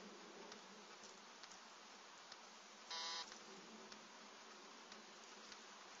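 Near silence with a steady faint hiss and a few light ticks, broken about halfway through by one short buzz lasting about a third of a second.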